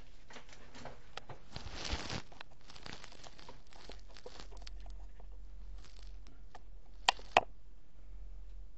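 Faint rustling and handling noise for the first couple of seconds, then two sharp clicks about seven seconds in, a third of a second apart, over a low steady hum.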